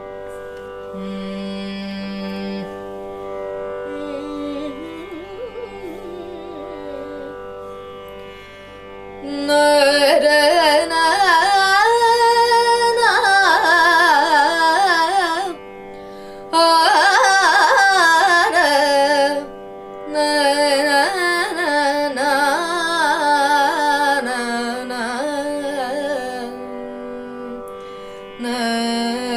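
Female Carnatic vocalist singing in raga Nasikabhushani over a steady tanpura drone. Her phrases are soft and low at first, then in full voice from about nine seconds in, with winding gamaka ornaments and brief pauses for breath.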